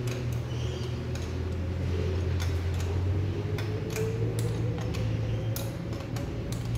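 Irregular small metallic clicks as a washer and 9/16 nut are fitted onto a carburettor mounting stud, over a steady low hum.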